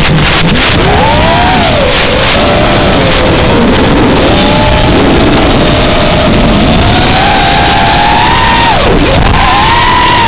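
Emax 2206 brushless motors of an FPV racing quadcopter whining, their pitch sliding up and down with the throttle, with a deep dip and recovery about nine seconds in, over a steady loud hiss. There are a few brief crackles at the start.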